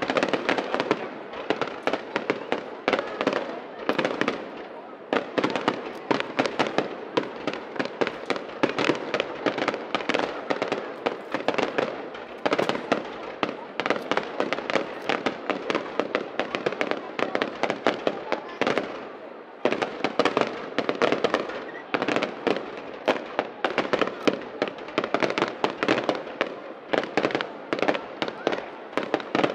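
Aerial fireworks display: shells bursting in rapid, overlapping succession, a dense, unbroken string of bangs and crackles, with two brief lulls.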